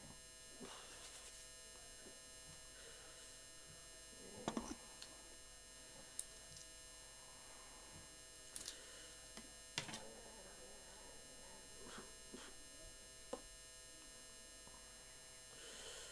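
Steady electrical hum with a few light clicks and knocks scattered through it.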